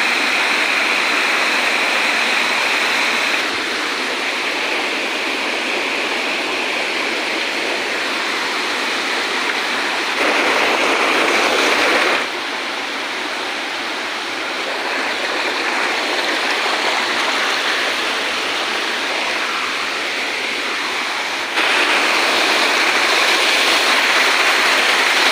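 Water of a rocky waterfall cascading and splashing over stone ledges: a steady rush that jumps abruptly louder or softer several times.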